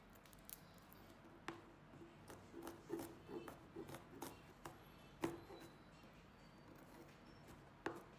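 Chef's knife chopping garlic cloves on a plastic cutting board: a quick, uneven run of soft knocks, then a couple of single sharper knocks.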